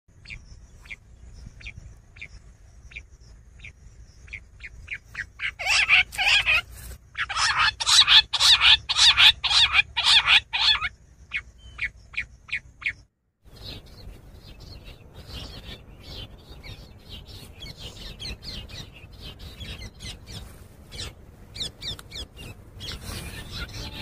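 Quail calling: short, sharp notes spaced out at first, then a dense, loud run of rapid calls from about six to eleven seconds in. After a brief break near thirteen seconds, fainter calls go on over a noisier background.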